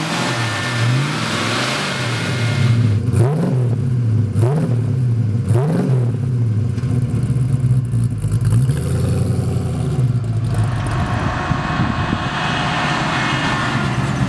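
1970 Ford Mustang Mach 1's 351 Cleveland V8 with an aftermarket cam and H-pipe exhaust with stainless mufflers, idling with a rhythmic rise and fall in pitch about once a second. The throttle is blipped three times near the middle, and near the end the car drives past with a rush of road and wind noise.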